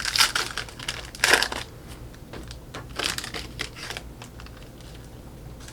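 Foil wrapper of a basketball card pack being torn open and crinkled, in a few short rustling bursts over the first four seconds, then only faint handling.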